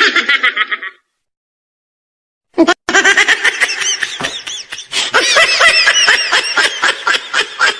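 High-pitched laughter in quick pulses: a short burst, a break of dead silence, then a long run of laughing from about two and a half seconds in.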